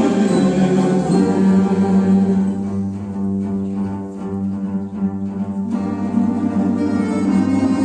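Combined orchestra playing an instrumental passage of a Christian hymn without singing, with long held low notes; it grows softer for a few seconds in the middle.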